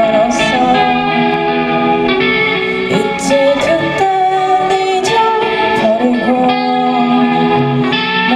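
Live rock band playing: a singer holding long melodic notes over electric guitars, bass, keyboard and a drum kit with steady cymbal hits.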